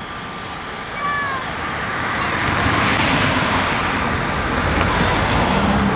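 Rushing noise of a passing vehicle, swelling about two seconds in and staying loud until near the end, after a short falling chirp about a second in.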